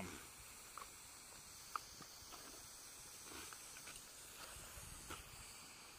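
Faint, steady hiss of water spraying from a garden hose nozzle, with a few brief snaps and clicks, the sharpest near two seconds in, as a dog bites at the spray.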